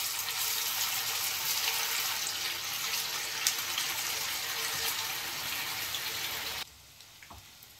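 Marinated, besan-coated soya chaap pieces deep-frying in hot oil in a kadhai: a steady sizzling hiss with fine crackling, which cuts off suddenly near the end.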